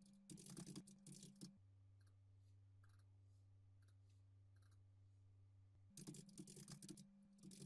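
Faint computer keyboard typing in two short spells: over about the first second and a half, and again in the last two seconds. A faint steady low hum runs underneath.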